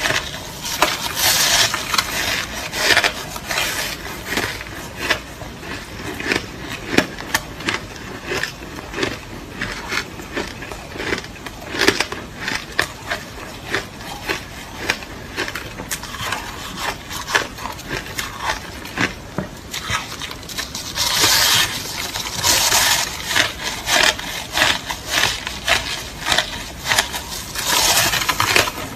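A person biting and chewing crushed ice close to the microphone: irregular, crisp crunches and crackles, growing denser and louder in spells about two-thirds of the way through and again near the end.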